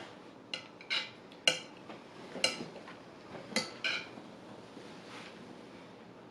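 Metal cutlery clinking and scraping against a ceramic plate while eating: about six sharp, ringing clinks in the first four seconds, then quieter.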